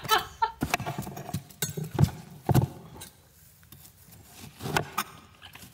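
Large kitchen knife chopping watermelon on a cutting board: a run of irregular knocks, with a quiet gap about halfway through and two more knocks near the end.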